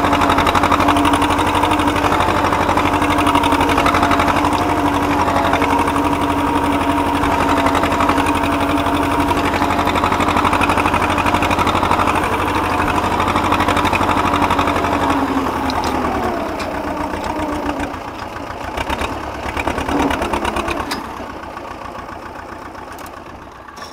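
Władimirec T-25 tractor's two-cylinder air-cooled diesel running steadily at working speed while ploughing stubble. About two-thirds of the way through the engine slows with a falling pitch and gets quieter, rising briefly again before running on quieter near the end.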